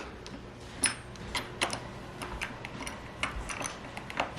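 Irregular light clicks and taps of a screwdriver working a Phillips screw out of the battery hold-down strap, with one sharper click about a second in.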